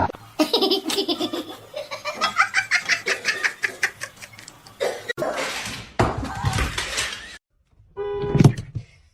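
Laughter in quick repeated bursts for the first few seconds, followed by other short sounds as the clips change.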